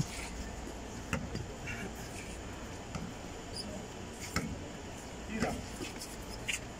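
Sparse sounds of a basketball game on a concrete court: a few short, sharp sounds from players' shoes and the ball, with faint distant voices of players.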